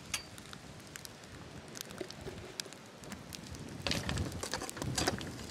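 Wood campfire crackling and popping with scattered sharp snaps under mud mussels roasting on a wire grill. About four seconds in, the crackle thickens into a louder burst of hissing and popping for a second or so.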